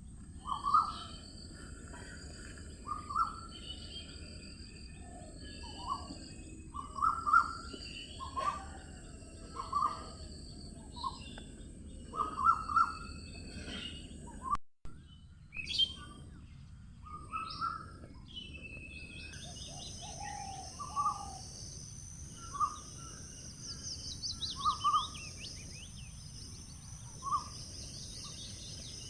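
Several birds calling and singing: a short, loud call repeated every second or two, with higher chirps and, later, quick falling trills, over a steady high hiss. The sound cuts out for a moment about halfway through, where the recording is spliced.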